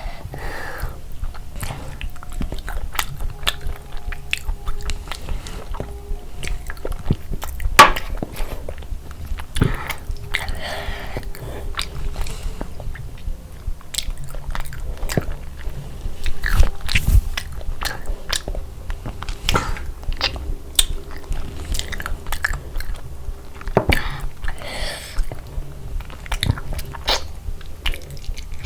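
A person eating close to the microphone: steady, irregular chewing and biting, with crunchy bites among them.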